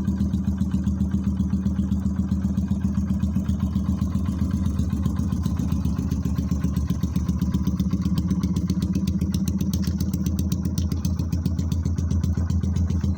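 Yamaha YBR 125's single-cylinder four-stroke engine idling through a modified exhaust, a steady, even pulsing beat.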